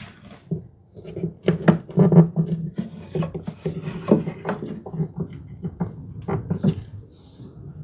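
Screws being driven into Baltic birch plywood strips without pre-drilling: uneven creaking and squeaking in short spurts, with sharp knocks mixed in.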